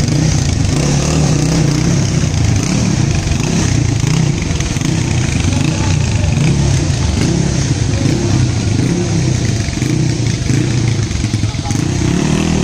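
Honda CG motorcycle fitted with a 230 cc single-cylinder OHC engine (66 mm bore by 66 mm stroke, CRF 230 type), running loudly while being ridden off, its engine speed rising and falling with the throttle.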